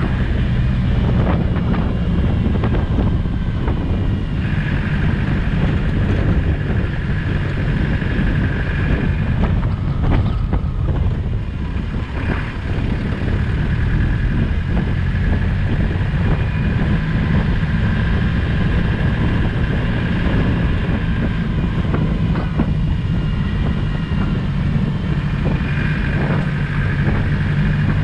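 Land Rover Discovery 200Tdi four-cylinder turbodiesel engine running steadily while the vehicle drives off-road, with wind on the microphone and a high whine that comes and goes.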